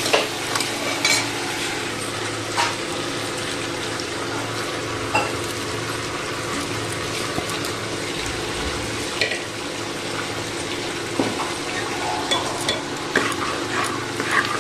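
Onion and spice masala sizzling steadily in an open pressure cooker while a spoon stirs it, clinking against the pot now and then as soya chunks are mixed in.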